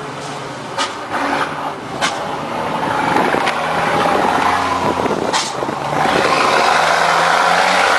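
Truck engine running under way, growing louder about two and a half seconds in as it pulls, its pitch shifting in steps, with a few short sharp clicks or knocks.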